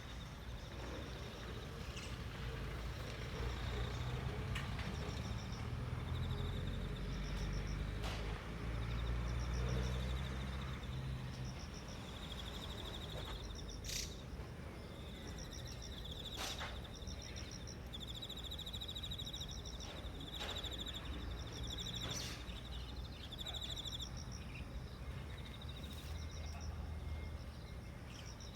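Outdoor ambience: a distant low traffic rumble that swells for several seconds early on, with insects trilling in short repeated phrases and a few sharp chirps or clicks.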